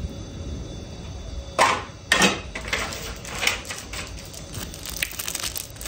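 Handling of makeup items: a few short rustling scrapes about a second and a half in, then a quick run of small clicks and taps near the end.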